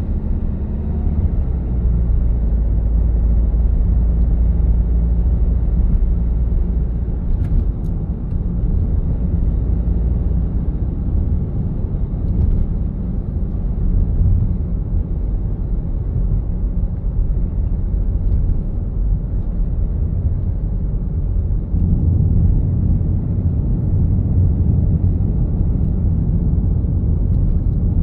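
Steady low rumble of a car driving in traffic: engine and tyre-on-road noise. It eases a little about a quarter of the way through and swells again about three quarters of the way through.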